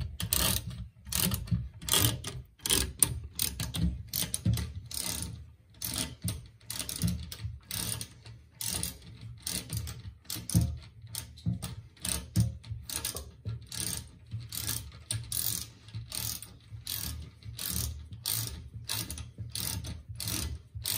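Half-inch ratchet socket wrench clicking as it tightens a toilet seat's hinge bolt, in a steady run of short sharp clicks, about two or three a second.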